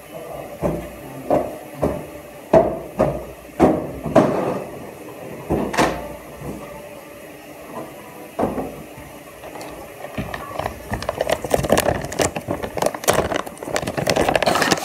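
Handling noises close to the microphone: a series of irregular knocks and taps, then from about ten seconds in a dense, fast rustling as craft materials are worked by hand.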